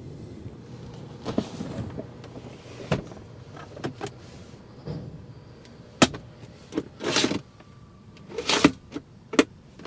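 Rear centre armrest of an Audi S7 being folded down and its pop-out cupholders opened by hand: a series of plastic clicks, clunks and brief rustles, with a sharp click about six seconds in.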